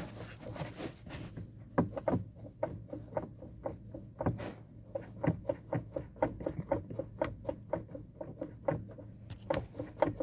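Rubber suspension dust boot being worked, giving a quick, uneven run of small clicks and creaks. The boot, not a worn ball joint, is the source of the knocking that sounds like failed ball joints over bumps.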